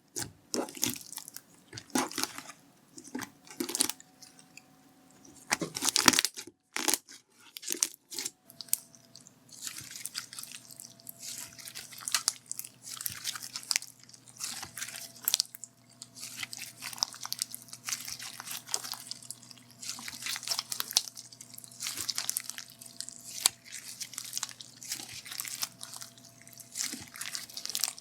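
Grape jelly foam slime being squeezed and pressed by hand, crackling and crunching. There are a few separate squishes over the first several seconds, then near-continuous crunchy crackling.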